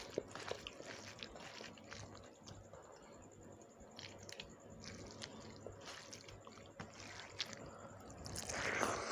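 Wet squishing and small clicks as a bare hand kneads rice with shrimp curry and mashed potato on a metal plate. Near the end there is a louder wet sound as a handful goes into the mouth.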